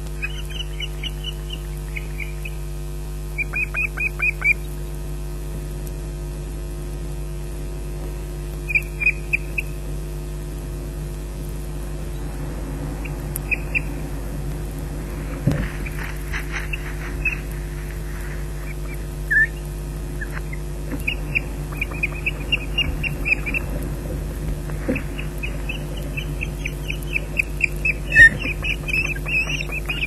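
Ospreys at the nest calling in several bouts of short, shrill whistled notes repeated quickly, the bouts coming more often near the end. A brief rustle in the middle, over a steady low hum.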